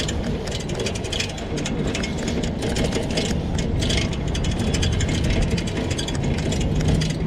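Yulu rental bike rolling along a paved path, its frame and wire front basket rattling and clicking irregularly over a steady low rumble.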